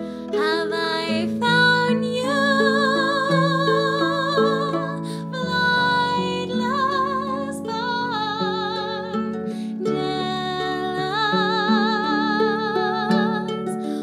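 Instrumental passage of a slow song: plucked harp chords under a slow melody of long held notes with strong vibrato.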